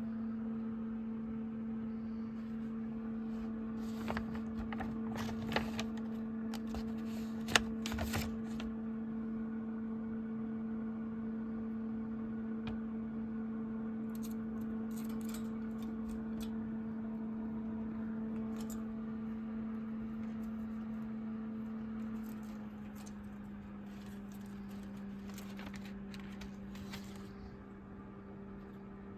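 A steady machine hum that drops slightly in pitch about two-thirds of the way through, with short rustles and clicks scattered over it.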